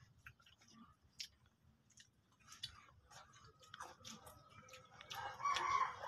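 Scattered sharp crunches and clicks of crunchy snacks being eaten and handled in a bowl. From about four seconds in a rooster crows, and this is the loudest sound.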